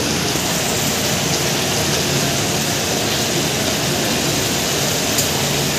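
Ground pork and carrot filling cooking in a wide steel wok, a steady, even hiss over a faint low hum.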